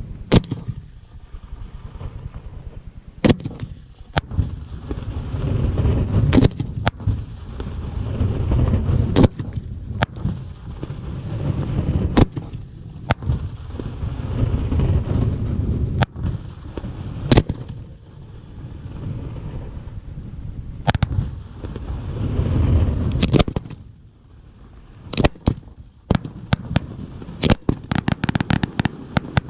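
Fireworks display: loud single shell bursts every second or two, over a low rolling rumble of booms and their echoes. Near the end comes a fast run of crackling bangs.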